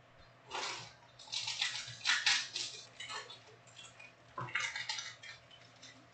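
Foil trading-card pack wrappers crinkling and rustling in several bursts as packs are pulled from a stack and handled.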